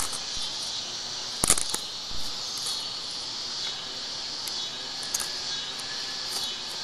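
Steady high-pitched chorus of cicadas, with one sharp click about a second and a half in and a few fainter clicks after it.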